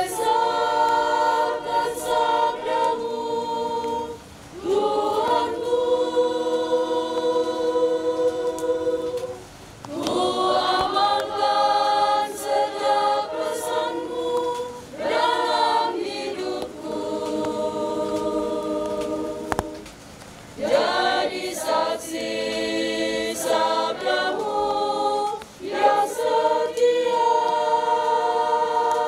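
Small choir, mostly women's voices, singing a hymn unaccompanied. The notes are held in long phrases, with short pauses for breath between them.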